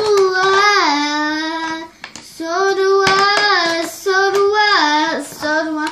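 A young girl singing in a high voice: long held notes that step down in pitch, in two long phrases followed by a run of shorter notes.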